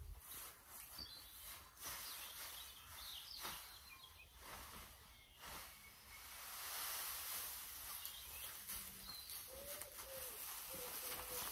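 Straw being forked and shaken out with a pitchfork, a faint dry rustle with small knocks, while small birds chirp in the background. Two short, low calls come near the end.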